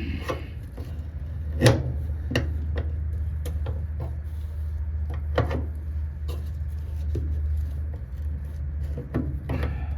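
Hand tools clinking and knocking on metal now and then while working at a stuck brake line fitting, over a steady low hum.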